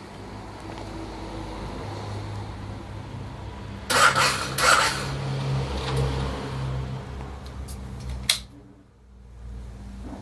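Aprilia Tuono motorcycle starting attempt that fails: a low droning whirr, two loud clacks about four seconds in, and a sharp click near the end before the sound briefly drops away. The owner suspects a weak battery or a slipping sprag clutch.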